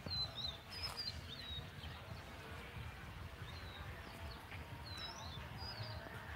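Small birds chirping in short, curling high notes, in a cluster near the start and another later on, over a steady low rumble.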